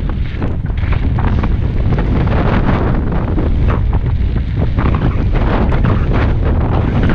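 Heavy wind buffeting on a GoPro's microphone at riding speed on a mountain bike, over a rapid crunching clatter of tyres and the bike rattling across a loose gravel track.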